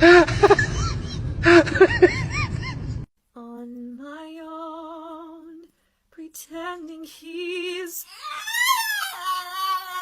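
Long, held vocal tones with a fast vibrato, sung or howled, broken by short gaps and swooping up and down in pitch near the end. Before them, after an abrupt cut about three seconds in, come short rising-and-falling squeaks over background noise.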